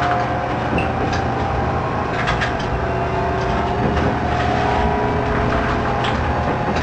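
Diesel railcar running along the line, heard from the cab: a steady engine drone with a few short clicks from the wheels about two seconds in and again near the end.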